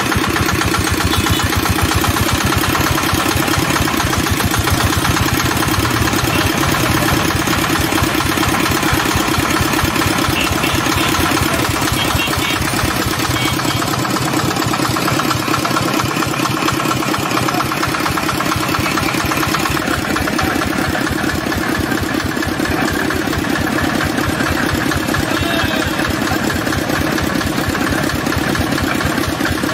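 Small engine running steadily, driving a belt-driven sugarcane crusher whose steel rollers squeeze the cane.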